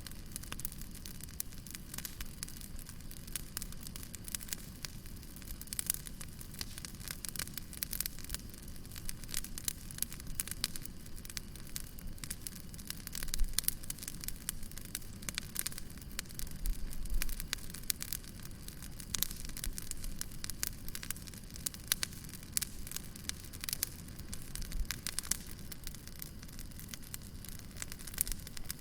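Wood fire burning with a steady low rumble and irregular sharp crackles and pops throughout, a few louder pops around the middle.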